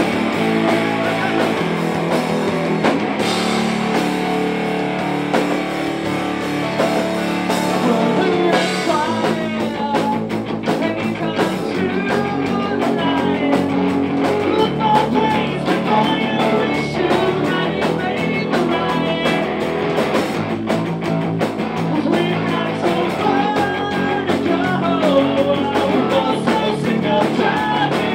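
Rock music with electric guitar, drums and singing, the drum strokes growing busier about nine seconds in.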